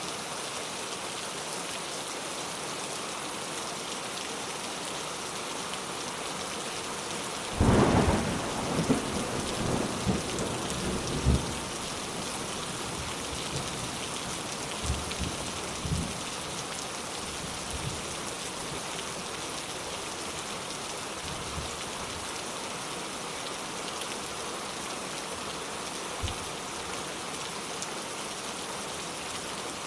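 Steady rain hissing. A sudden thunderclap comes about a quarter of the way in and rumbles on for several seconds, followed by a few fainter rumbles.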